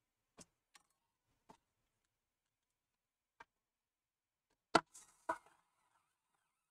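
Small clicks and taps of an electric screwdriver and screws on the metal of a laptop-style CPU blower fan as it is screwed in: a few faint ticks, then two louder sharp clicks about half a second apart near the end.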